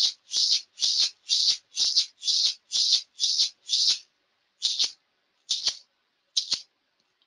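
Hand rattle shaken in a steady beat of about two shakes a second. It slows to three spaced-out final shakes about four seconds in, then stops: the close of a ritual rattling interval.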